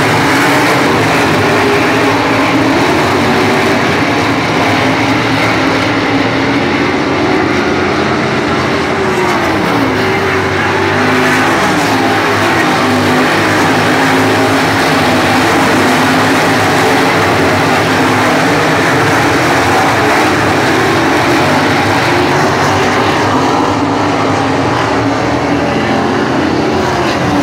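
A pack of dirt-track race cars running laps together, loud and continuous. Several engines overlap, their pitch rising and falling as the cars go by.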